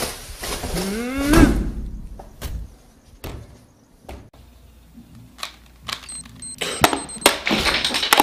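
Handling noise from a plastic trash bag and a plastic wastebasket: rustling with a rising glide about a second in, then a string of sharp separate knocks and thuds, growing busier near the end.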